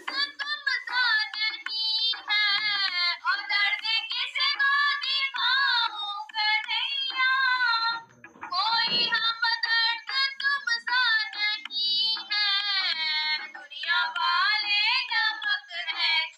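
A high voice singing a Hindi devotional bhajan, with a brief break about halfway through.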